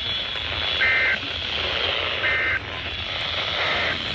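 NOAA Weather Radio SAME end-of-message signal: three short squawks of two-tone digital data, about a second and a half apart, the third fainter, marking the end of the weekly test broadcast. A steady radio-reception hiss runs underneath.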